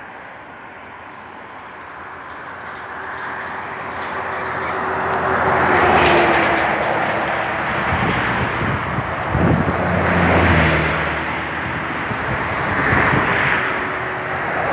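Road traffic: vehicles passing, the noise swelling and fading about three times.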